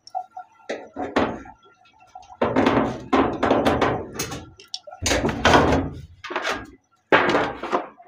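Sheet-metal panel of a top-load washing machine being unscrewed and taken off: a series of knocks, thunks and longer metallic scraping and clattering as the panel is handled.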